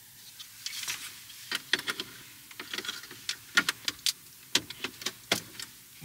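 Irregular clicks and knocks of hard plastic parts handled and pressed together as a 3D-printed window switch mount is test-fitted.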